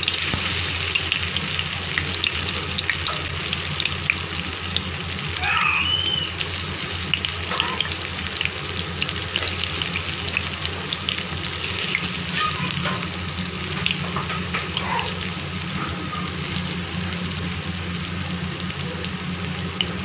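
Oil sizzling with fine, continuous crackles as pieces of alu vadi (colocasia-leaf and mixed-dal fritters) shallow-fry in a nonstick pan, over a steady low hum.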